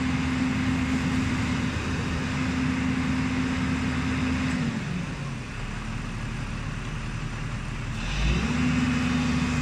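JCB 205 tracked excavator's diesel engine running at high revs under hydraulic load, its pitch falling to a lower speed about five seconds in and rising back to the high, steady speed near the end.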